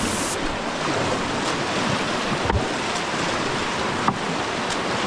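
Steady rush of whitewater river water, with two brief knocks about two and a half and four seconds in.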